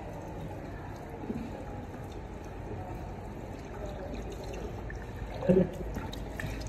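Running tap water trickling and splashing as a man washes his face with cupped hands, with a short vocal sound about five and a half seconds in.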